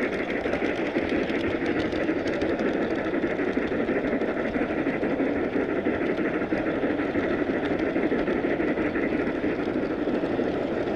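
Miniature ride-on train rolling along its track: a steady rumble of wheels on rail, with faint scattered clicks.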